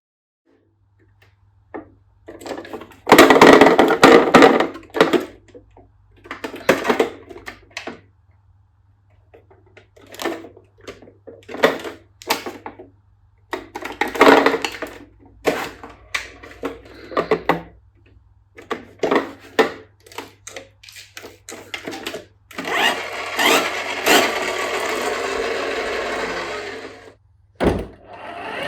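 Toy fire trucks being handled and run: irregular clattering and whirring in short bursts, then a longer, steadier whir from about 22 seconds in, over a steady low hum.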